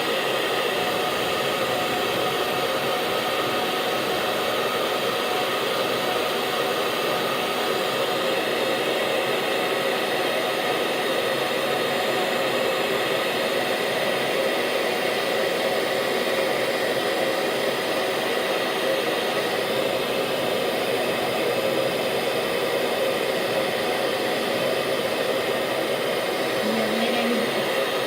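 Handheld hair dryer running steadily, a constant whirring blow of air with a few faint steady tones in it.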